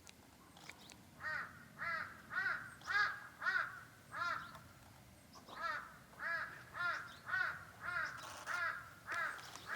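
Crows cawing in two runs of harsh calls, about two a second, with a short pause between the runs.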